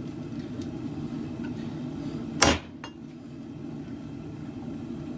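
Steady roar of a propane forge burner, with one hammer blow on steel at the anvil about halfway through and a light rebound tap just after.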